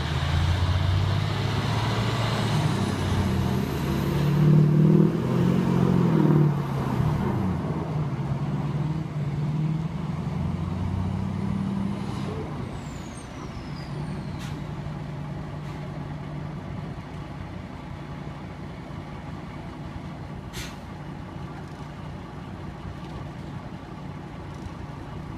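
Truck engines running as a pickup tows a dump truck over snow on a strap: revving hard and loudest about five seconds in, then settling to a steadier, quieter running for the rest.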